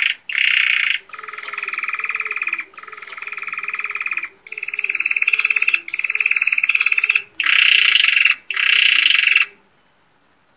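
Spanish Timbrado canary singing rodadas, the continuous, hollow rolling tours sung on 'ru-ru-ru' or 'ro-ro-ro'. About seven rapid trilled phrases follow one another with short breaks between them.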